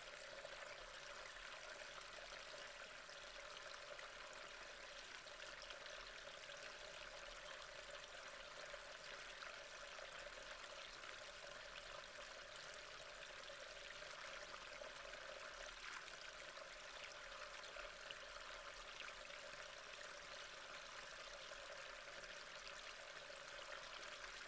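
Faint, steady hiss of background noise, with no distinct events.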